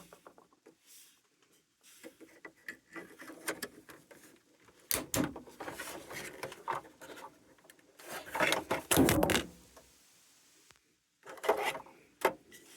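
Removal tool sliding over and prying at a plastic dash rocker switch: scraping, rubbing and clicks, with louder bursts of handling about five seconds in, around eight to nine seconds, and near the end.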